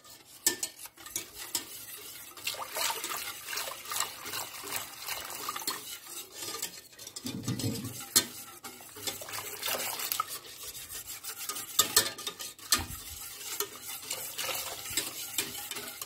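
A whisk stirring a thin flour-and-water batter in a stainless steel saucepan, with steady swishing and many light clicks of the whisk against the pot.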